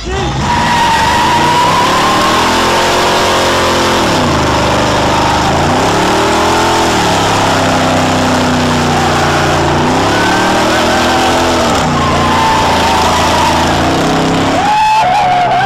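A classic Chevrolet Impala's engine revving hard during a burnout, its pitch climbing and dropping back several times, over the steady screech of spinning rear tyres.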